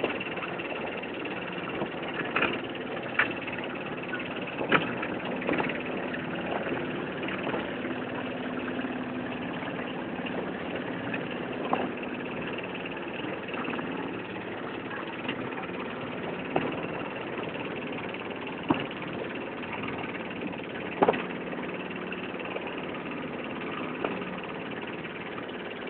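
Small pleasure boat's motor running steadily as the boat moves over the water, with occasional short sharp knocks.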